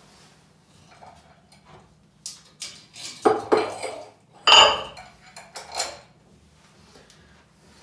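Metal weight plates clanking and clinking together as the load is changed, about five knocks in the middle few seconds. The loudest comes about four and a half seconds in.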